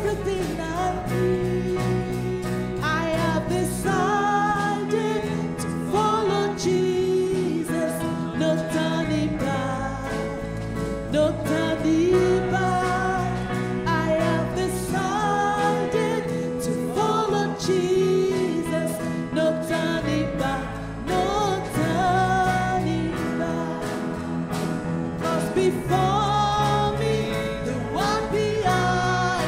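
Church worship band with guitars and a bass line accompanying voices singing a worship song, with chords and melody running continuously.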